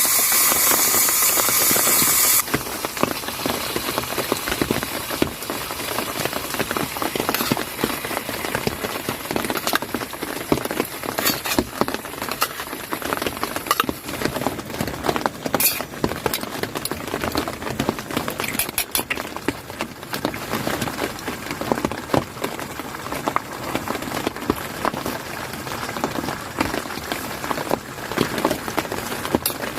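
Steady rain pattering, with many small drop ticks throughout. A bright, high hiss in the first two seconds cuts off abruptly.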